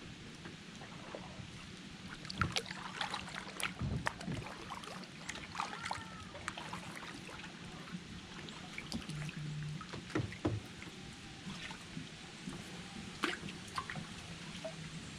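Kayak being paddled: small splashes and drips of water off the paddle blades, with scattered light knocks, over a steady background of moving water.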